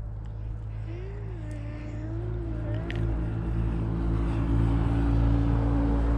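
A motor vehicle's engine running with a steady low hum, growing louder over the last few seconds.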